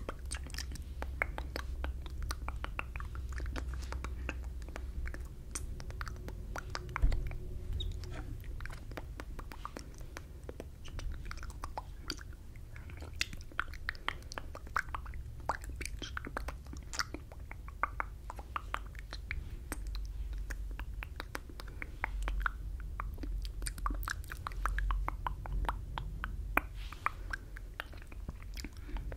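Close-miked mouth sounds from silently mouthed, inaudible whispering: a dense run of wet lip and tongue clicks into a furry-windscreen microphone, with a low rumble underneath. One sharper click stands out about seven seconds in.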